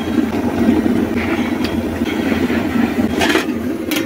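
Steady low rumble throughout, with a few sharp metallic clinks near the end as an aluminium lid is set onto a kadai of simmering fish curry.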